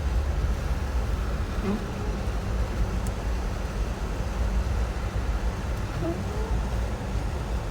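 Four-door Jeep driving, a steady low rumble of engine and road noise heard from inside the cabin.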